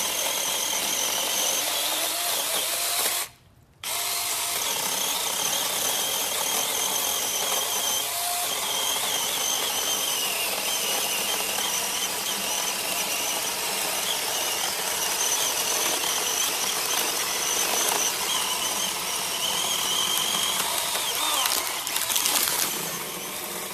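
Taranzy 6-inch battery-powered mini chainsaw running with a steady high-pitched whine, stopping briefly about three and a half seconds in, then running on until it cuts off suddenly.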